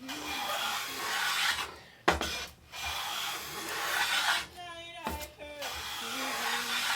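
Lie-Nielsen No. 4 bench plane taking long cutting strokes along a wooden paddle blade, about four passes, some starting with a light knock as the plane meets the wood.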